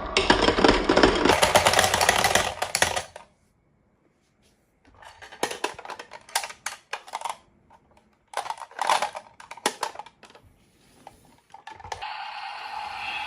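Marbles rolling and clattering down a wooden HABA marble run. A dense rattle stops suddenly about three seconds in, and after a short silence come scattered runs of clicks and clacks. Near the end a steady hum comes in.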